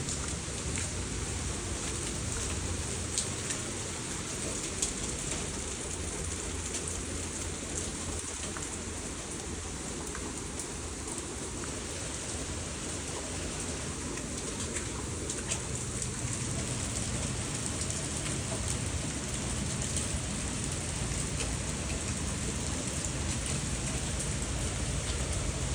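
Steady rain falling, with scattered drops ticking sharply now and then.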